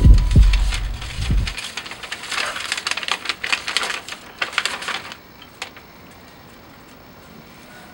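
Paper envelope being handled and opened, a letter drawn out: a quick run of crisp paper rustling and crackling, then a single click. Low booming in the first second and a half, which cuts off abruptly.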